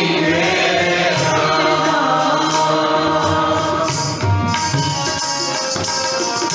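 Harmonium and tabla accompanying a Sikh shabad kirtan in Raag Bihagara. A sung line trails off over the first couple of seconds, leaving sustained harmonium notes over tabla strokes.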